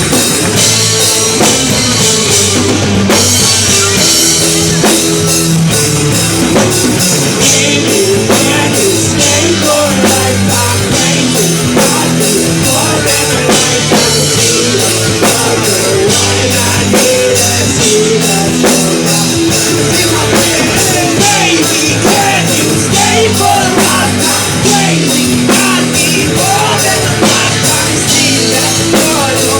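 Live rock band playing loud: electric guitars and bass over a fast, busy drum kit, with some singing.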